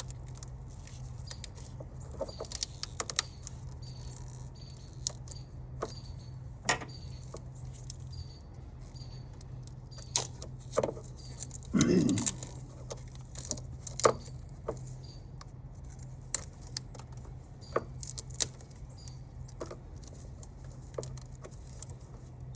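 Tape being unwound from a battery cable by hand: scattered small crackles and ticks, with a brief louder rustle about halfway through, over a steady low hum.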